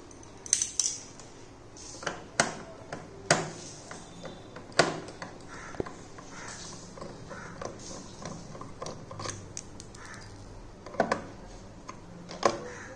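Screwdriver and the TV's plastic table stand knocking and clicking as the stand is unscrewed from the back of an LED TV: a handful of sharp knocks spread through, with a quieter stretch in the middle.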